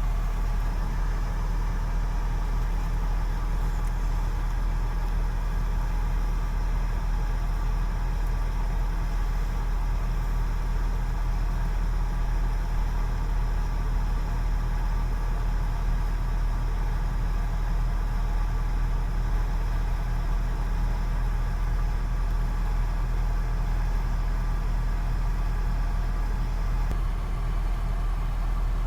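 A truck crane's diesel engine running steadily, a constant low drone that holds the same speed with no revving.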